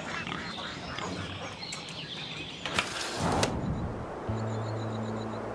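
Title-sequence music and sound effects: a busy mix with a whoosh about three seconds in, then a low steady drone with faint high chirps.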